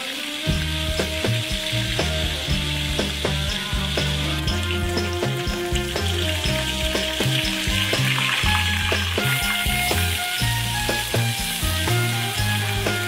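Fish sizzling as it shallow-fries in hot oil in a metal wok, with frequent short clicks of a metal spatula against the wok.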